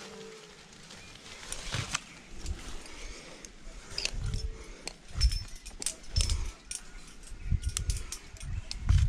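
Climbing hardware, carabiners and quickdraws on a harness, jangling and clicking as a lead climber moves on the rock. Several low rumbles on the microphone come and go, the loudest near the end.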